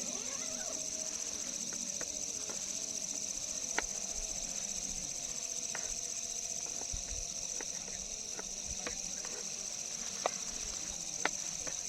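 Steady, high-pitched chorus of night insects such as crickets, with a few sharp clicks or knocks, three of them standing out near 4 s, 10 s and 11 s in.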